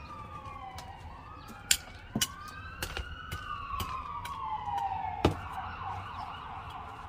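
A siren wailing, its pitch gliding slowly up and down. A few sharp knocks come through as a hand trowel strikes the plastic tub while scooping soil.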